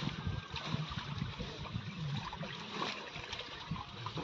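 Shallow pond water sloshing and trickling as a nylon seine net full of fish is gathered up by hand, with small scattered splashes.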